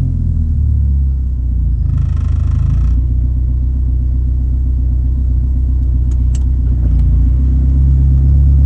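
1997 Mitsubishi Eclipse GSX's turbocharged 2.0-litre four-cylinder idling steadily in gear. The idle holds instead of sagging toward a stall, a sign that the idle adjustment has improved. A short faint hiss comes about two seconds in.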